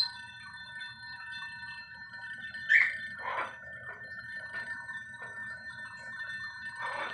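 Crystal glasses ringing, several steady high tones held together, with one sharper ringing clink a little under three seconds in. The glasses are said to be sounding on their own, without being touched.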